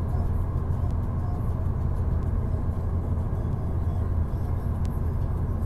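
Steady low rumble of a car's engine and tyre noise, heard from inside the cabin of a car on the move.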